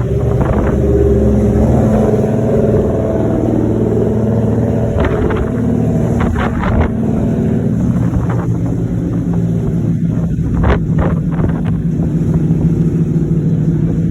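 Boat engine running at a steady pitch, with a few short sharp knocks about five to seven seconds in and again later.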